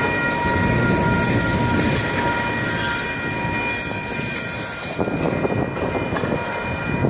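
Loaded grain hopper cars of a slow freight train rolling past, with a steady high-pitched squeal from wheels grinding on a curve.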